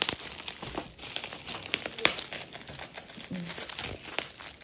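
Plastic and bubble-wrap parcel packaging crinkling and crackling as it is cut open with scissors and handled, in irregular sharp crackles with a few louder snaps.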